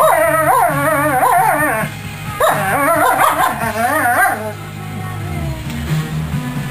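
Wolfdog whining in long, wavering, pitched moans, in two bouts of about two seconds each, warning another dog away from her food container. A rock song plays underneath.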